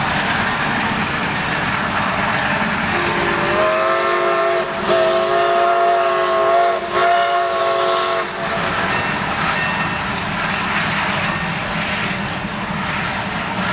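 Shay geared steam locomotive's whistle sounding a chord of several notes in three blasts, the middle one longest, over the steady noise of the train running.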